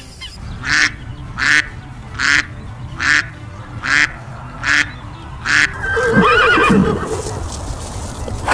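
A run of seven short, rasping calls about three-quarters of a second apart, then a horse whinnying from about six seconds in, its pitch wavering and falling away.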